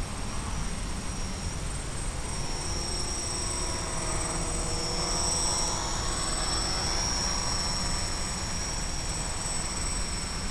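Small FPV quadcopter's electric motors and propellers whirring over a steady rushing hiss, with two thin high steady whines. Through the middle a fainter whine wavers up and down in pitch as the throttle changes during slow, low flight.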